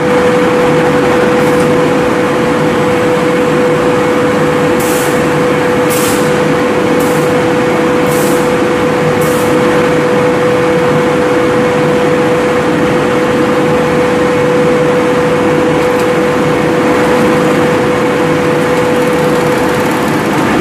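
Tile adhesive open-mouth bag packing line running: loud, steady machine noise with a constant whine. A few seconds in there are five short air hisses, about a second apart.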